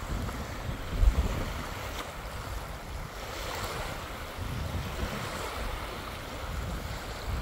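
Small freshwater lake waves breaking gently and washing up onto a sandy beach, a steady wash of surf. Wind buffets the microphone in uneven low gusts, the strongest about a second in.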